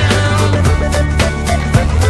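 Upbeat background music with a steady beat and a strong bass line.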